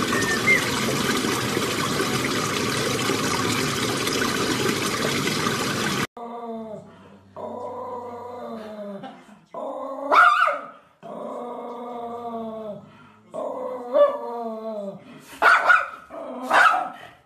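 For the first six seconds, a loud steady rushing noise. Then a golden retriever puppy whines and howls in long drawn-out cries that fall slightly in pitch, broken by four sharp yips.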